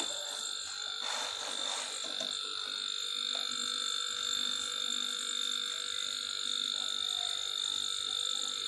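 A small electric motor running with a steady, high-pitched whine, its tone unchanging throughout, with a brief faint hiss about a second in.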